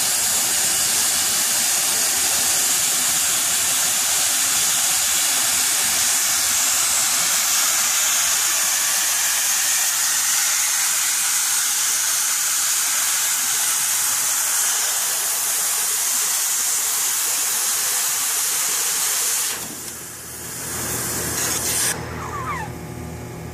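Multi-torch oxy-fuel cutting machine hissing steadily as its cutting jets burn through thick steel plate. Near the end the hiss drops off sharply as the cut ends, leaving a quieter hiss and a low machine hum.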